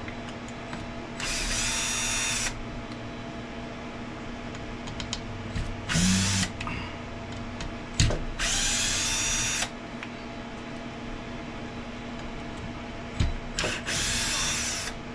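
Small electric screwdriver with a 2 mm hex bit whirring in four short bursts, each a second or so long, as it backs screws out of an RC drag car chassis. There is a sharp click between the second and third bursts.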